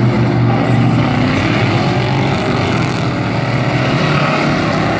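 Engines of four dirt-track race trucks under throttle at the green flag, a loud, steady drone whose pitch shifts as the pack accelerates through the turn.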